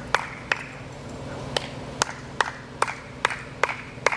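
Hands clapping in a steady rhythm, about two to three sharp claps a second.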